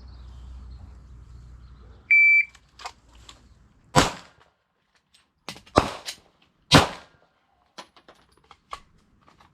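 A shot timer's high start beep, then about a second and a half later sharp pistol shots from a Glock 17 9mm. The three loudest come over about three seconds, with a gap of nearly two seconds after the first.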